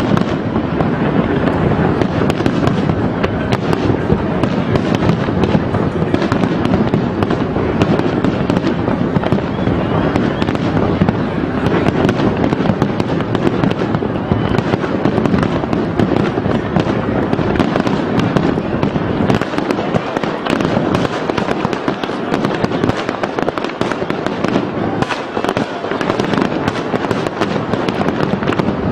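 Aerial fireworks shells bursting in a rapid, overlapping barrage: a dense, unbroken run of bangs and crackle.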